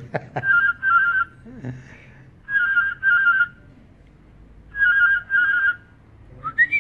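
A man whistling through his mouth to imitate an animal call: three pairs of short warbling trills with pauses between them, then a few quick rising whistles near the end.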